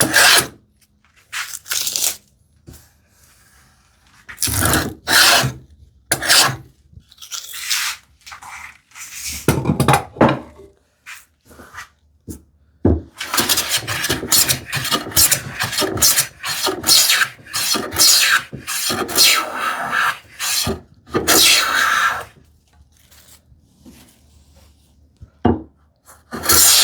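Hand plane strokes across a wooden board, each a short scraping rasp, some spaced apart and then a fast run of quick strokes in the middle.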